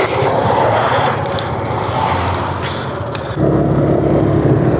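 Wind rush over the rider's microphone and the Sym Cruisym 300 scooter's single-cylinder engine while riding, getting louder about three and a half seconds in.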